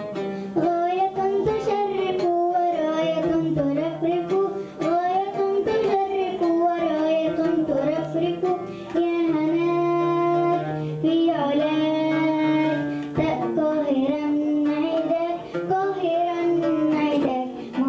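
A young girl singing a melody into a microphone, holding some notes and gliding between others, accompanied by a plucked string instrument.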